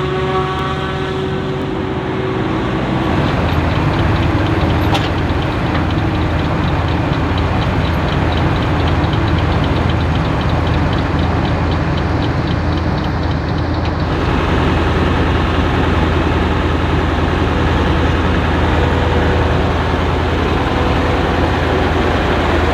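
Heavy diesel farm machinery running steadily under load. A fast, even ticking joins in about three seconds in and stops about fourteen seconds in.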